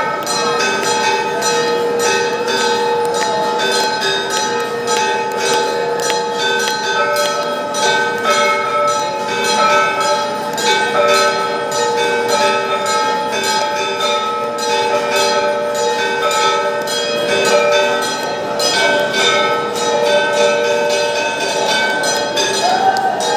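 Temple bells rung continuously for the aarti: rapid, unbroken strikes with several bell pitches ringing over one another.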